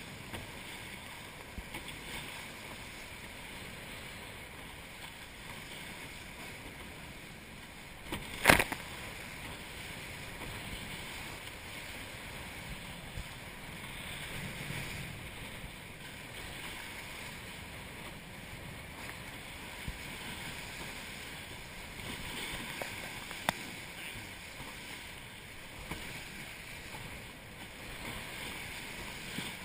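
Hobie Cat catamaran hulls running through choppy water, a steady rush and splash of water with wind. A single sharp knock, the loudest sound, about eight seconds in, and a small click later on.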